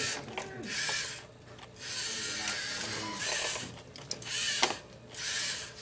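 LEGO Mindstorms NXT robot's servo motors whirring through their gears in repeated short bursts, each a second or less, as the robot drives and turns to realign itself at a maze cell. A sharp click about four and a half seconds in is the loudest moment.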